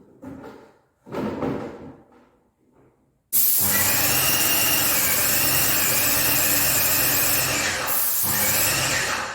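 Airless paint sprayer spraying: a loud, steady hiss with a steady hum beneath it. It starts abruptly about three seconds in, after a few light knocks, and breaks off briefly near the end.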